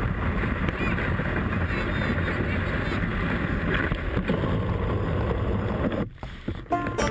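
A moving dogsled on a packed snow trail: a steady rush of noise from the runners gliding over snow, with wind on the microphone. The noise drops briefly about six seconds in.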